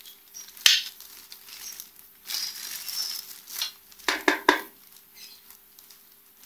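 Clear plastic packaging bag crinkling and rustling as a keyboard sealed inside it is handled and turned over. There is a sharp click about a second in and a quick cluster of knocks about four seconds in.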